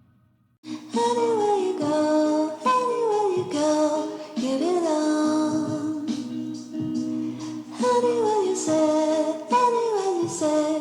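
Background song with a sung vocal line over an instrumental backing, starting about half a second in after a moment of near silence.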